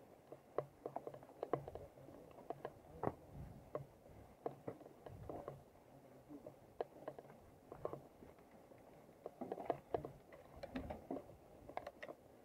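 Mountain bike rolling over a rough dirt trail: irregular clicks, taps and knocks as the bike and its handlebar phone mount rattle over the bumps, with the tyres crackling on the ground.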